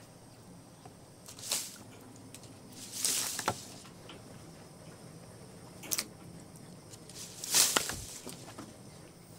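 Splashing in shallow standing water: several separate short splashes, the loudest near the end.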